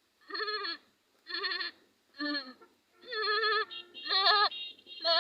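A man imitating a doe goat's bleating with his voice: a run of about seven short, quavering bleats, louder in the second half. It is the call of a nanny goat in heat calling for the buck.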